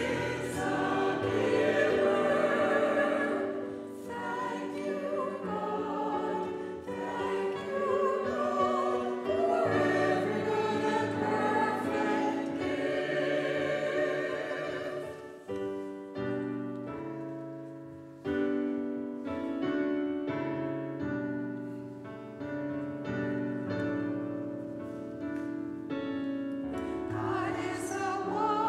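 Mixed church choir singing an anthem with piano accompaniment. About halfway through the voices drop out and the piano plays alone, and the choir comes back in near the end.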